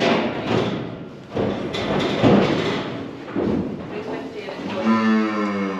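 Thuds and clangs from a cattle crush and metal handling gates.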